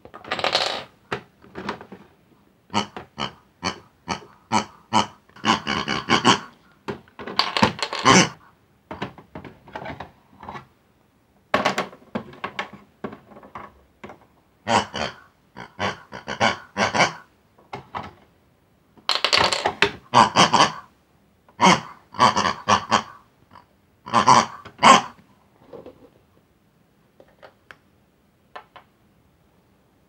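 Bursts of pig-like oinks and squeals voicing the toy pigs, in quick groups with short pauses between. The calls stop near the end, leaving a few faint taps.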